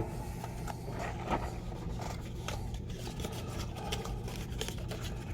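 Handling noise from setting a cartridge upright on a tabletop: a few light clicks and scrapes, the sharpest about a second in, over a steady low hum.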